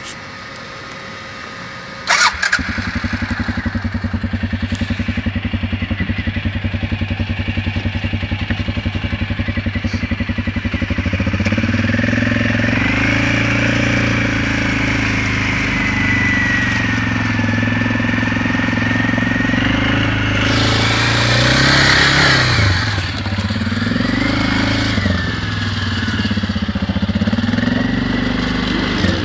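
Quad bike (ATV) engine starting up with a sharp jump about two seconds in, then running with a fast, even beat as the quad rides through mud and water. The engine note steps up around eleven seconds in and rises and falls several times toward the end, with a loud rushing burst a little after twenty seconds.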